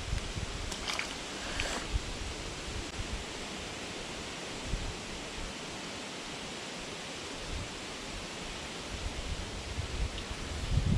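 Steady rushing outdoor background noise, with a few faint clicks about a second in and some low rumbles near the end.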